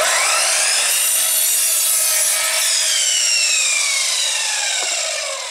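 Harbor Freight 12-inch double-bevel sliding miter saw cutting a 1x4 strip at a 22.5-degree angle. The motor whines up to speed at the start, and from about halfway the whine falls steadily as the blade spins down.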